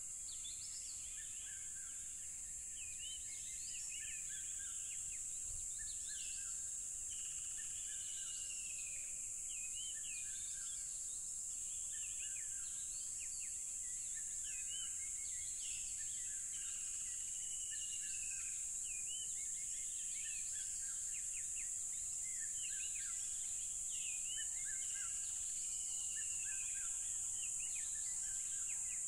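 A steady, high-pitched chorus of tropical crickets, with birds chirping and whistling over it again and again.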